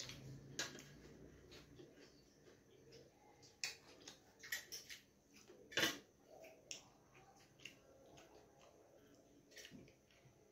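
Fingers mixing rice and dal on a stainless steel plate: faint soft wet squishes with scattered light clicks, the sharpest about six seconds in.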